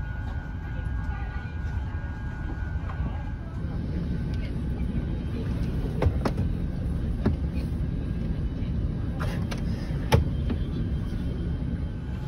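Steady low rumble of an Airbus A350-900's cabin air and systems while parked, with a few sharp clicks and knocks from the seat's armrest being handled, the loudest about ten seconds in.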